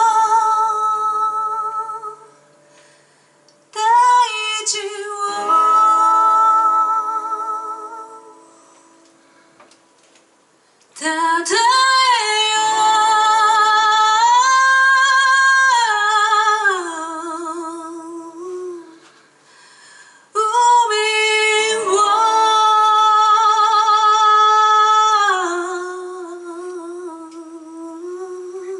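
Live band music: a singer holding long, slightly wavering notes in several phrases with short pauses between them, acoustic guitar faint underneath.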